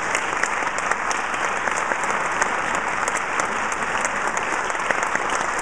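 Audience applauding steadily: a dense patter of many hands clapping at once, holding an even level.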